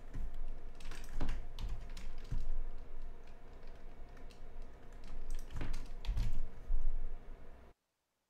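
Typing and clicking on a computer keyboard, irregular key strokes with some dull thuds. The sound cuts off suddenly near the end.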